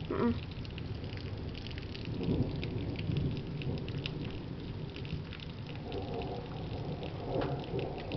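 Rain falling steadily during a thunderstorm, with many separate drops ticking sharply on a nearby hard surface.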